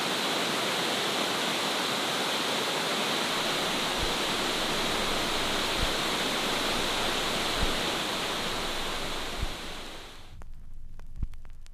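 Steady roar of Shifen Waterfall's falling water that cuts off suddenly near the end. Soft low thumps recur about every two seconds under it.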